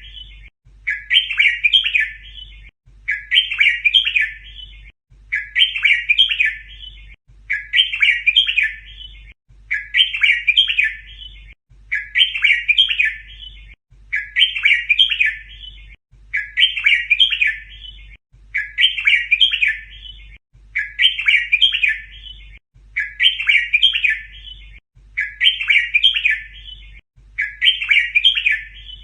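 Red-whiskered bulbul song: the same short, chirpy phrase repeated about every two seconds, over and over, as a looped tutor recording for teaching young bulbuls to sing.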